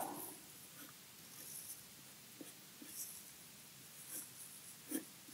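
Pencil scratching faintly on paper in a series of short strokes with brief pauses between them.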